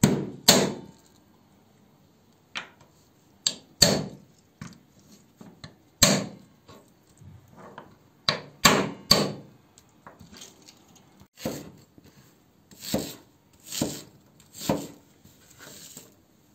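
Large kitchen knife chopping through raw chicken bones on a bamboo cutting board: a series of sharp chops, several in close pairs, splitting the bones open for their marrow. In the later seconds, softer cuts as the knife goes through an onion on the board.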